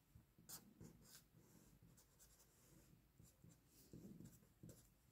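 Faint scratching of a marker pen drawing on paper: a few short strokes in the first second or so, then a few more about four seconds in.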